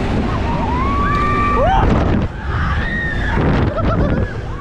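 Riders on a swinging fairground thrill ride screaming: several overlapping high screams that rise, hold and fall. Under them is a heavy rush of wind on the microphone as the ride swings.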